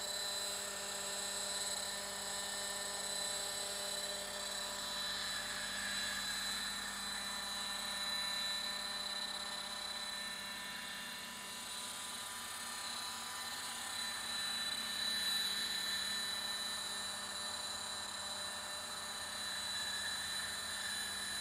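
Roban EC130 800-size electric scale RC helicopter hovering at a 1,000 RPM head speed. Its motor and rotors make a steady high-pitched whine.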